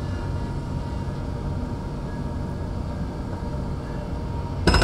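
Steady low rumble of heavy machinery. Just before the end a loud burst of fast, evenly spaced rattling hammering starts.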